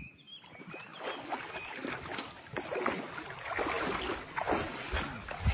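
Footsteps and the swish of rubber chest waders as a person walks through grass, in a run of irregular rustles.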